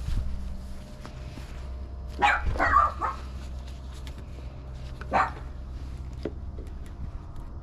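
A dog barking: a quick run of barks about two to three seconds in and one more bark about five seconds in, over a steady low hum.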